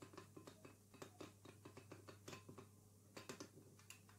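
Metal spoon stirring a thin flour-and-water mixture in a small bowl: faint, quick clicks of the spoon against the bowl, several a second.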